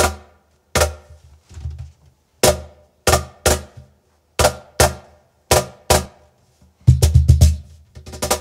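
Cajon played by hand in a rasgueado pattern: sharp slaps on the front plate, each with a deep boom, spaced in a rhythm. About seven seconds in there is a fast roll of finger strikes, and another quick flurry near the end.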